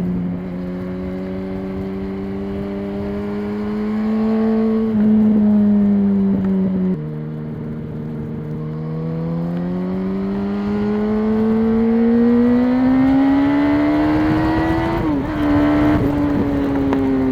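2006 Yamaha R1's inline-four engine with stock exhaust, running under way. Its pitch steps down sharply about seven seconds in, climbs steadily for several seconds as the bike accelerates, then drops back near the end.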